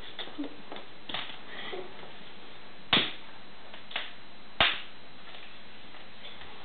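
A kitten playing with a wand toy on a bare wooden floor: faint taps in the first two seconds, then three sharp knocks on the boards about three, four and four and a half seconds in.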